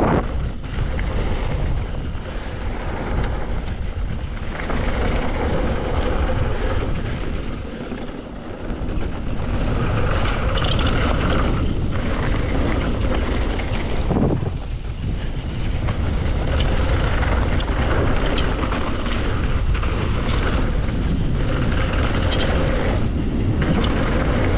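Mountain bike descending a dirt trail: continuous tyre rolling noise and the bike's rattling and clatter, under a heavy low rumble of wind on the microphone. The level dips briefly about eight seconds in.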